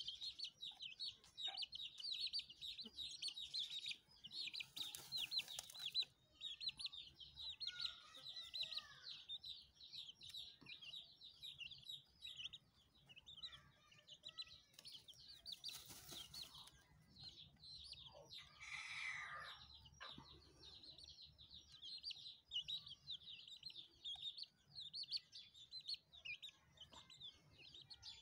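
Aseel chick peeping rapidly and almost without pause, high and faint, while the hen dust-bathes. Twice there is a short scratchy rustle of dirt being flung, and about two-thirds of the way through there is one lower hen call.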